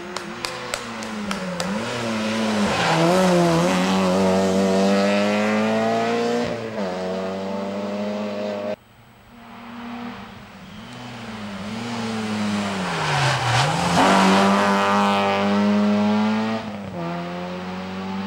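Rally car engines revving hard as the cars pass one after another, the first a Citroën Saxo: the engine note dips and climbs with braking and gear changes, with a few sharp clicks in the first second or so. About halfway the sound cuts off abruptly and a second rally car comes up, revs hard and passes in the same way.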